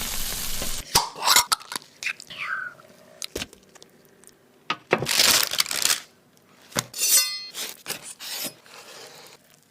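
Irregular clattering and clinking of kitchen dishes and utensils being handled, in short bursts with quiet gaps and a brief rattle near the end.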